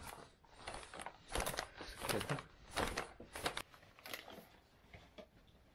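Irregular clicks, knocks and rustling from a phone being handled and set down, with bags or clothing brushing against it.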